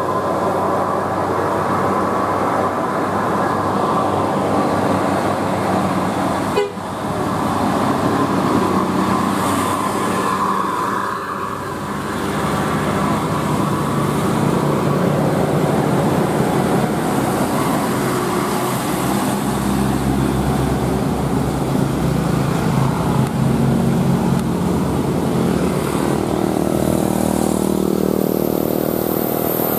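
Tour bus 'telolet' multi-tone musical horn sounding over bus engines and road traffic, with a brief break about seven seconds in.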